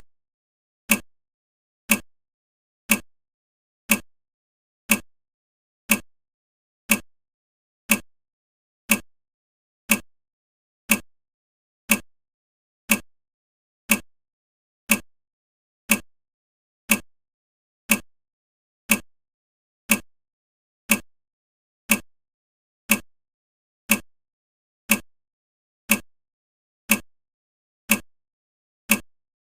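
Countdown timer ticking once a second: a short, sharp tick every second, evenly spaced.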